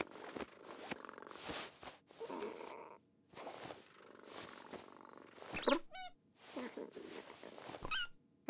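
Cartoon cat purring and rustling as it paws at and settles into its fur-lined bed. A few short, high, squeaky calls come near the end.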